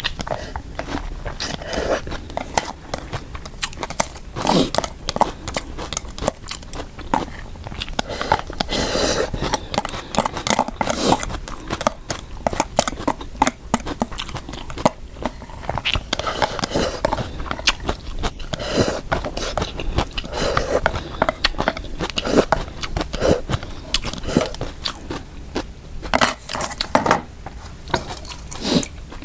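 Close-miked eating sounds: a person chewing and biting mouthfuls of mixed dry instant noodles, with irregular moist clicks and smacks.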